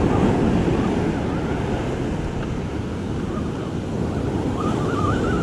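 Surf breaking and washing up the sand, with wind buffeting the microphone. A thin wavering high tone comes in near the end.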